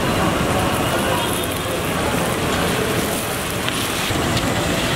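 Hot oil sizzling steadily in a large iron kadai as a handful of green leaves is tipped in and stirred with a wire-mesh skimmer.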